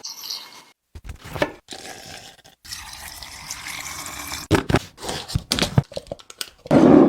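Kitchen liquid sounds in short chopped pieces, with several sharp knocks in between; the loudest is a dull thump near the end.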